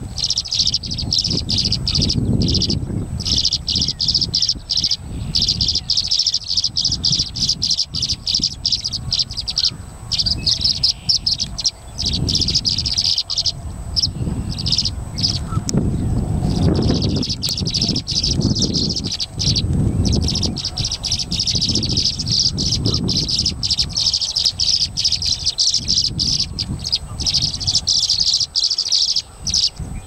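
Tree swallows chirping and twittering in a dense, almost unbroken chorus, with low wind rumble on the microphone.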